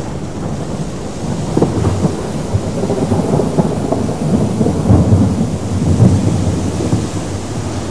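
A low, crackling rumble like thunder that grows steadily louder.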